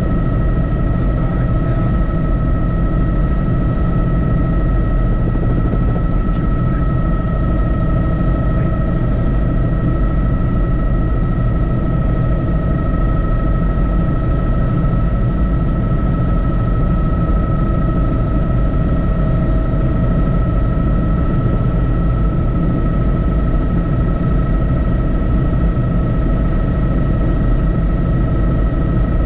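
Helicopter running with an unchanging, loud low rumble, and a few constant high whining tones over it.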